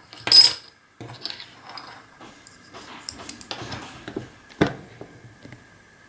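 Small plastic tiles clattering and clicking as they are set down and pushed into place on a wooden tabletop. The loudest clatter comes about half a second in, with smaller clicks after it and another sharp click after about four and a half seconds.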